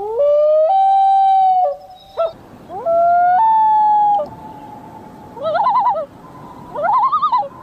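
A bird calling: two long, clear wailing notes that each step up in pitch partway through, followed by two short wavering, warbling calls.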